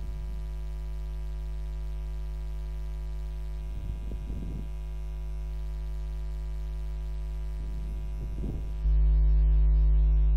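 Steady electrical mains hum with a buzz of overtones, picked up by the recording setup. It turns louder and duller about nine seconds in.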